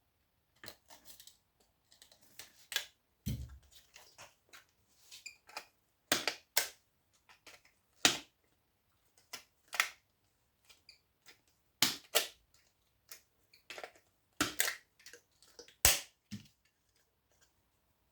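Stanley knife being worked down the side of a scrap part, giving irregular sharp clicks, snaps and cracks, a few every second or two.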